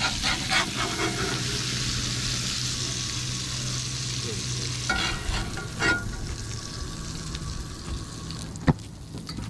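Fish fillets sizzling in a cast-iron skillet on a camp stove, with a metal spatula scraping the pan as the pieces are lifted out. The sizzle dies down about halfway through, and there is one sharp click near the end.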